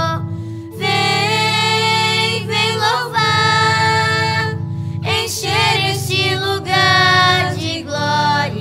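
A Portuguese Christian praise hymn sung by a solo voice in long held phrases with short breaks between them, over steady sustained accompaniment chords.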